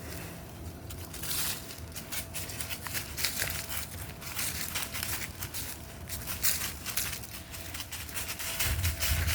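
Footsteps crunching and crackling through dry fallen leaves, an irregular run of rustles and crackles.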